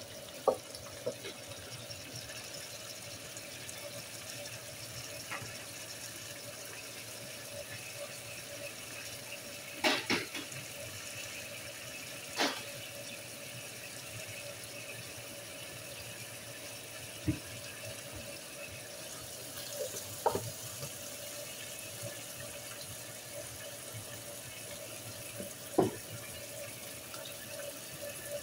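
Diced chicken breast sizzling steadily in oil and its own juices in an electric skillet, with a few short knocks now and then.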